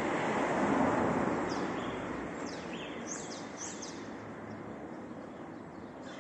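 A passing vehicle whose noise rises briefly and then fades steadily away. A few short, high chirps from a small bird come in the middle.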